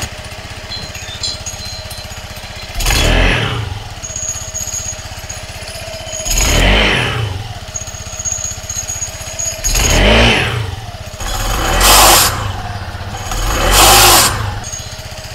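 Motor scooter engine idling and revved five times in short blips, each rising and falling back to idle. It is a test run to check whether a noisy Reveno 1.5 aftermarket clutch has been quietened by a modification to its sliders.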